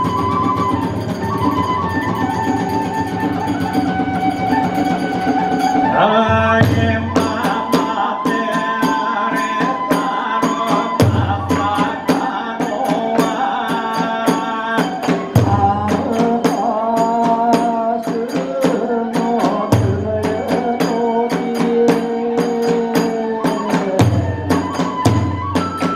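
Kagura hayashi music: a bamboo transverse flute playing sustained, sliding notes, joined about six seconds in by a fast, dense beat of small hand cymbals and a large drum struck in periodic low beats.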